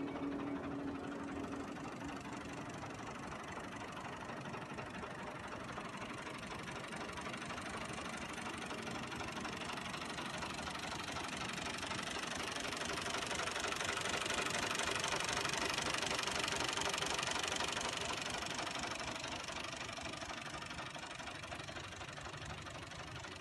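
New Holland Fiat 480S tractor's diesel engine idling with a steady knocking clatter, growing louder in the middle stretch and easing off again.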